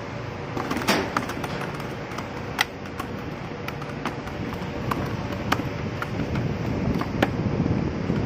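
Freshly caught small fish flapping in a plastic bucket, giving irregular sharp taps and knocks, about nine of them, over steady wind noise.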